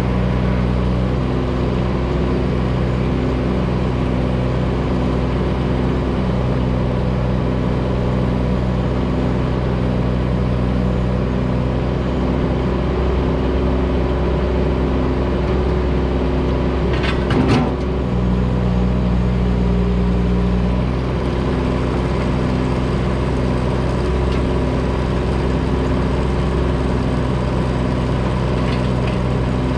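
Kubota U17 mini excavator's three-cylinder diesel engine running steadily under hydraulic work. A single sharp knock comes a little past halfway through.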